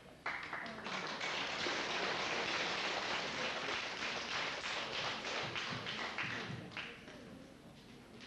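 Audience applauding, a dense patter of hand claps that thins out to a few scattered claps near the end.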